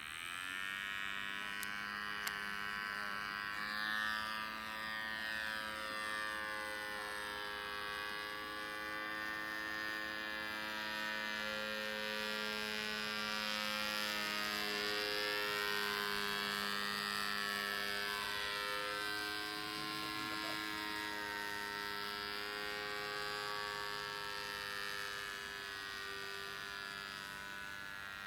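Electric motor and propeller of a radio-controlled model airplane in flight, giving a steady buzzing hum. It comes in suddenly at the start and rises in pitch as the throttle opens, then holds with a slightly wavering pitch.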